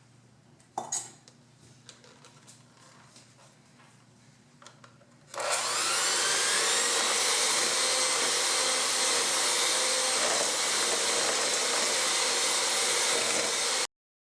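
A few faint clicks and taps, then about five seconds in an electric mixer switches on. Its motor whine rises as it comes up to speed, and it runs steadily, beating cocoa into chocolate whoopie pie batter. It cuts off abruptly near the end.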